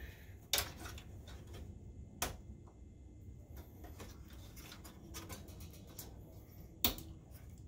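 Small tool and plastic wire connectors clicking as the fan wiring inside a projector chassis is worked loose: three sharp clicks, about half a second in, a little past two seconds and near the end, over faint handling noise.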